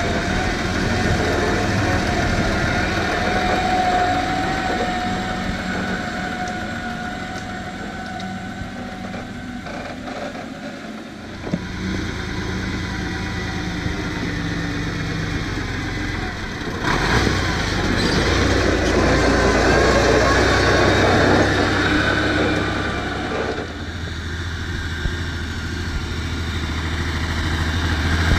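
Praga V3S truck's air-cooled Tatra 912 inline-six diesel engine running as the log-laden truck drives, its tone shifting abruptly a few times.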